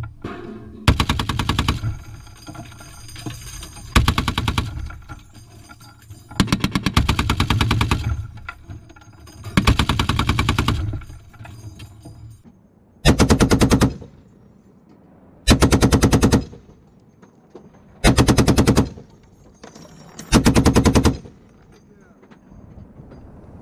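Browning M2 .50 calibre heavy machine gun firing eight short bursts of automatic fire, each about a second long with a couple of seconds between them.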